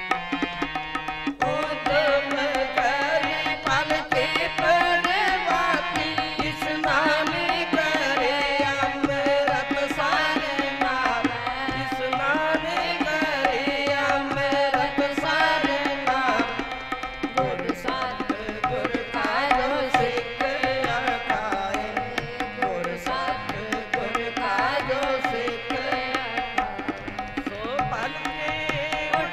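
Sikh kirtan: women singing a hymn together to two harmoniums, with tabla keeping the beat.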